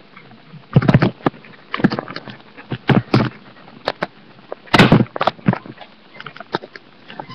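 Irregular knocks and bumps from a webcam device being handled and carried while walking, about a dozen of them, the loudest about five seconds in.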